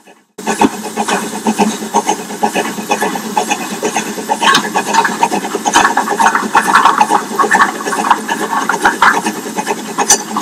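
Steam-hauled train of early wooden carriages running past, a loud, dense clatter of wheels and rattling rolling stock that starts abruptly just after the beginning and is busiest in the middle.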